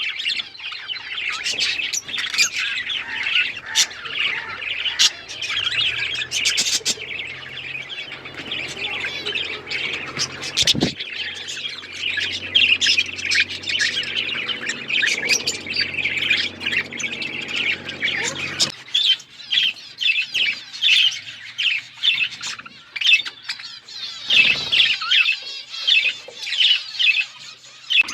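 A flock of budgerigars chattering and chirping together, many busy overlapping warbles and squawks with no pause. A faint low hum runs underneath and cuts off about two-thirds of the way through.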